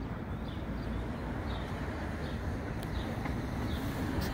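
Outdoor background noise: a steady low rumble with a few faint high chirps.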